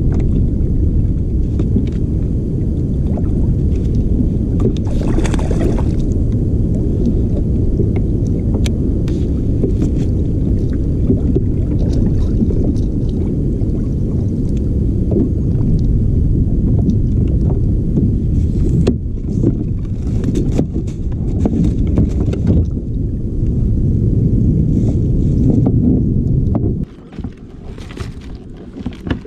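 Wind buffeting the microphone: a loud, steady low rumble with scattered small clicks and knocks above it. The rumble drops off abruptly near the end.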